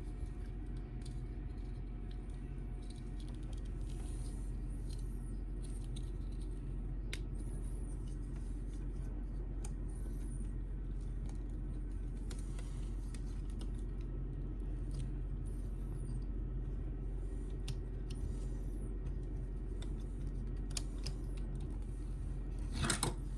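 Plastic action-figure parts clicking and rustling as they are handled and fitted together, faint against a steady low hum, with one louder knock or rustle near the end.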